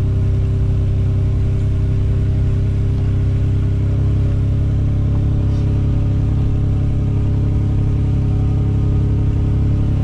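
A motor running at an even speed: a steady low hum with a few constant tones above it, without revving or change.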